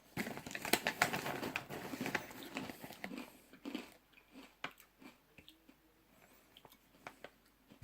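A person biting into and chewing a crisp potato snack stick, close to the microphone. The crunching is dense for about the first four seconds, then turns sparser and quieter as the chewing goes on.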